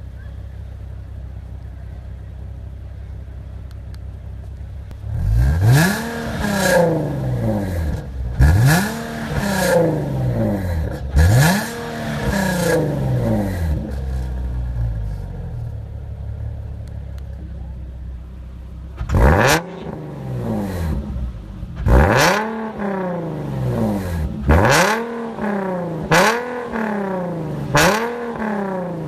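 Nissan 370Z Roadster's 3.7-litre V6 through an Armytrix valved flap exhaust, idling and then revved hard three times about three seconds apart. It settles back to idle, then is revved six more times, coming quicker toward the end, each rev rising sharply and falling back to idle.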